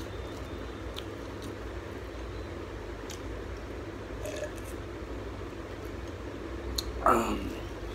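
Wet squishing of rice and prawn curry being mixed by hand, with chewing and small clicks. About seven seconds in comes the loudest sound, brief and falling in pitch.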